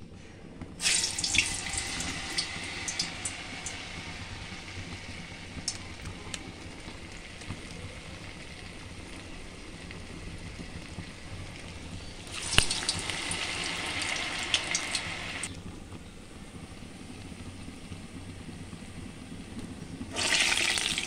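Urad dal vadas deep-frying in hot oil: a sizzle that flares up about a second in, again about twelve seconds in, and near the end, each time a ball of batter is dropped into the oil, with a steady frying hiss and crackle in between.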